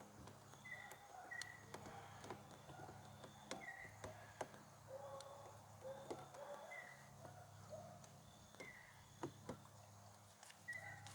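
Faint outdoor background: scattered short bird chirps, a few small clicks and taps, and a faint low hum that comes and goes.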